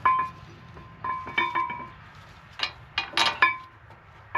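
Steel brake parts, the caliper bracket and its bolts, clinking and knocking as they are handled and set in place: about six short metallic knocks, each ringing briefly.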